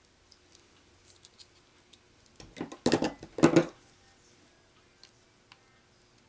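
Hand crimping tool squeezed shut twice on a spade connector, two loud crunching strokes about half a second apart near the middle, with light clicks of the tool and connector being handled before them.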